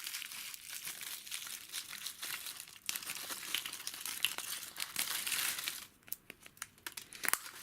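Surprise egg wrapper being crinkled and torn open by hand, a dense crackling with a brief pause about three seconds in. About six seconds in it gives way to a few scattered sharp clicks.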